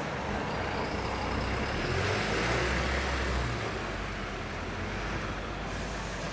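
City street traffic: a steady wash of passing cars, with one vehicle's engine rumble and tyre noise swelling as it passes close about two seconds in and fading again.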